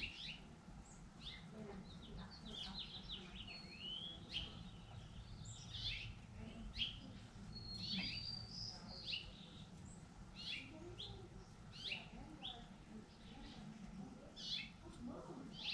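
Songbirds chirping and calling, many short high notes and quick slurred whistles overlapping, over a faint low rumble.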